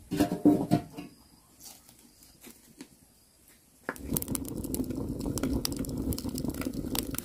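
A metal kettle set down with a few clanks on the iron bars of a wood-fired stove. About four seconds in, a wood fire burning inside the stove's firebox: a steady rush of flame with many sharp crackles.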